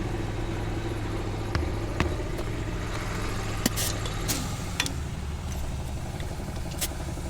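Engine running at a steady idle, with a few light clicks and taps, while a semi truck tire is being aired up.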